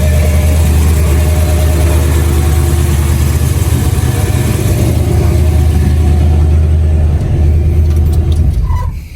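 1971 Chevrolet C10 pickup's carbureted engine running steadily while still cold, its timing and carburettor freshly set. The sound drops away just before the end.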